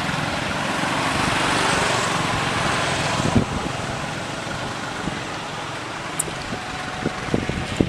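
A motor vehicle running close by, its noise dropping away about three seconds in, then a few light clicks.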